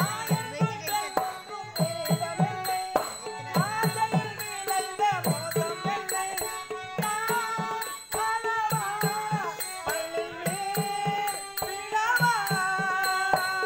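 Tamil stage-drama song: a performer sings in long, wavering notes over a steady rhythm of hand-drum strokes.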